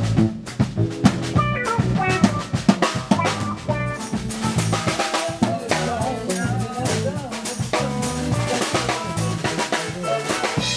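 A band playing: a drum kit keeps a steady beat over electric bass notes.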